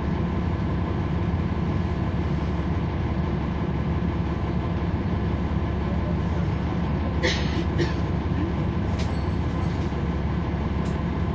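Cummins ISL9 diesel engine of a NABI 40-SFW transit bus running steadily, heard from on board, with a deep, even drone. Two short hisses come about seven seconds in.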